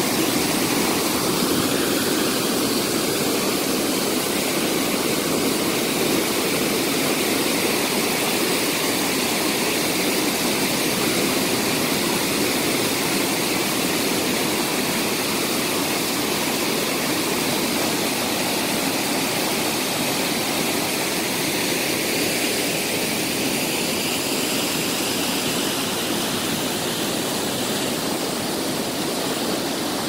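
Waterfall pouring onto a beach: a steady rush of falling and splashing water.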